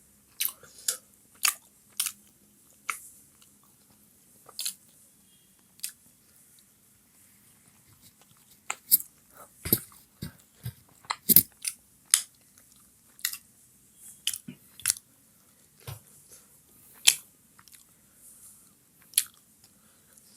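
Close-miked eating of chicken momos: chewing with irregular sharp, wet mouth clicks and smacks, some spread out and others coming in quick clusters, busiest in the middle.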